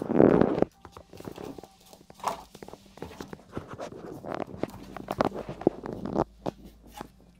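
Two puppies play-fighting on a hard floor: scuffling, paws and claws scrabbling, and scattered knocks and clicks. A louder burst of noise comes in the first second.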